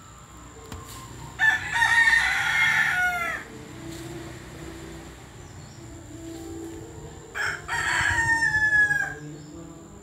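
A rooster crowing twice, each crow about two seconds long and ending in a falling tail.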